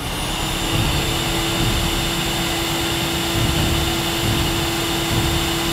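A steady, jet-like rushing noise with a constant hum running through it, most likely an edited sound effect.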